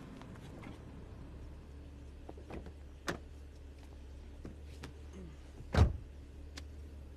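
A car's passenger door is opened and a person climbs into the seat with a few clicks and knocks, then the door shuts with a heavy thump near the end. Under it runs the low steady hum of the idling car.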